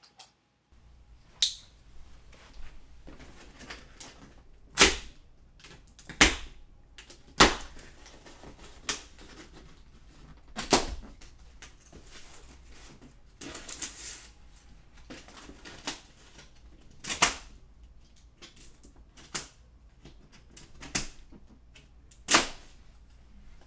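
Irregular sharp snaps and clicks, about a dozen, as plastic packing straps around a cardboard box are cut and pulled loose, with a short rustle about halfway through.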